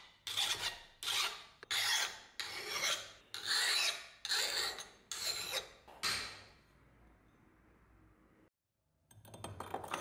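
A steel hand file rasping across the edge of an old axe head, about eight strokes at an even pace, stopping after about six seconds. This is a file test of the edge's hardness, and the file cutting into the steel suggests the head has lost its temper.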